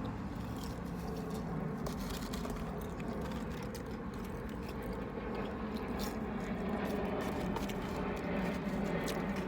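Close-up chewing and biting of food, over the steady low hum of a car's interior.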